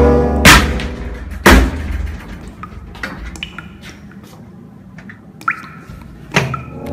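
Two loud bangs about a second apart on a toilet cubicle door, then scattered softer knocks, a short squeak and one more bang near the end.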